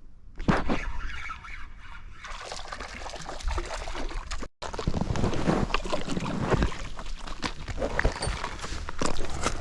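Water splashing and sloshing close by in irregular bursts, as a small trout thrashes while being landed at the lake's edge. The sound cuts out for a split second about halfway through.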